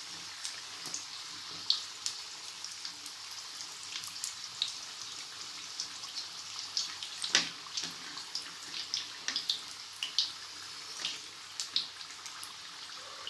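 Samosas deep-frying in hot oil in a kadai: a steady sizzle with frequent small crackles and pops, and one louder click about seven seconds in.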